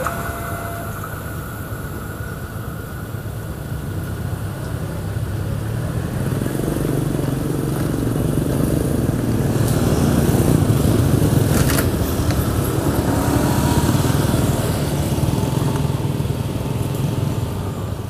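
Motorcycle and car engines running as the vehicles drive over the level crossing, growing louder from about six seconds in, with a few brief clicks near the middle.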